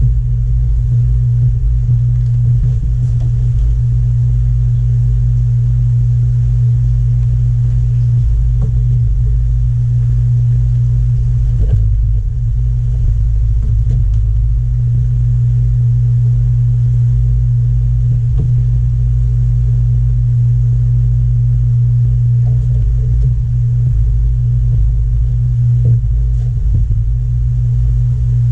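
Steady, loud low hum of large-aquarium pumping and filtration equipment, with a few faint knocks.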